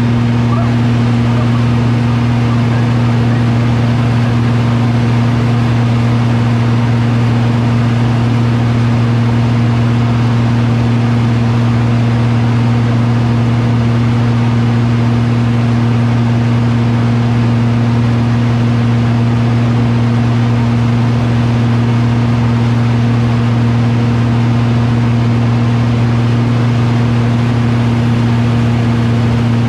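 Engine running at a steady, unchanging speed: a loud, constant low drone.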